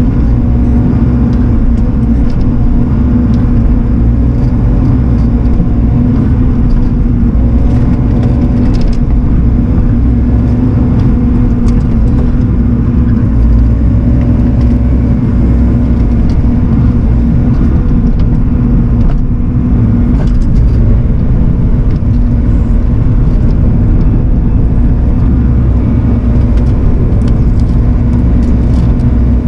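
Bobcat E42 mini excavator's diesel engine and hydraulics running steadily, heard loud from inside the cab, with a constant low hum and occasional faint clicks.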